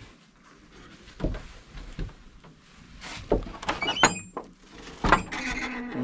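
Old wooden cupboard doors being handled: a series of knocks and thuds, with a brief creaky squeak about four seconds in. Rustling near the end.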